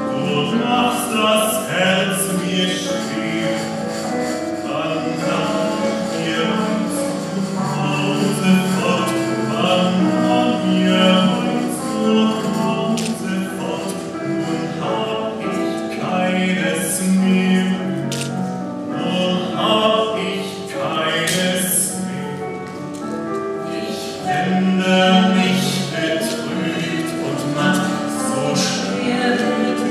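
A man and a woman singing a song together.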